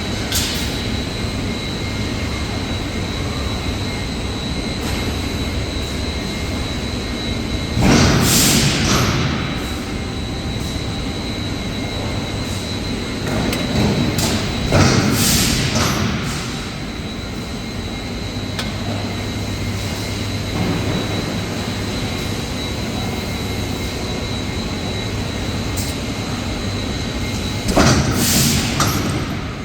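Aluminium forging line machinery running steadily, with a constant high whine. Three loud rushing surges of noise rise over it: one about a quarter of the way in, one around the middle and one near the end.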